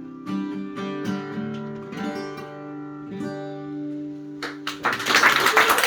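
Acoustic guitar strumming the song's closing chords, the last chord left ringing. Just before the end the audience starts clapping, with a few first claps and then full applause.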